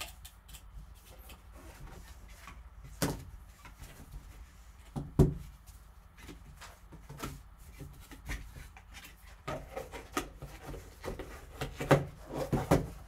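Handling noise of a cardboard trading-card box being opened and its foam insert lifted out: scattered taps, scuffs and knocks, the loudest about five seconds in and again near the end.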